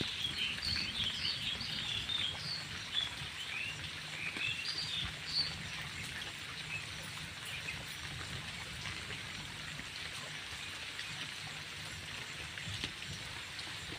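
Birds chirping over the steady hiss of falling rain; the chirps stop about five seconds in while the rain continues.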